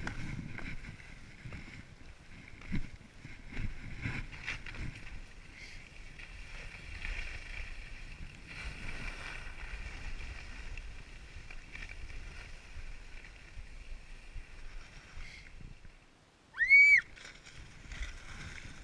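Skis sliding and hissing over snow, with scattered low knocks. Near the end it drops out briefly, then comes a single short, loud, high-pitched rising-and-falling whoop.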